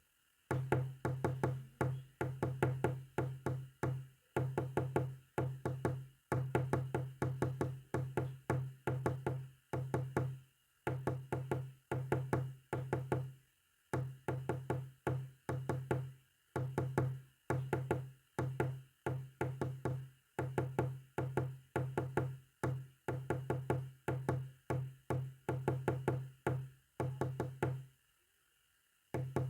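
Morse code sent as a low buzzing tone, keyed on and off in long and short stretches separated by brief gaps, with a longer pause near the end.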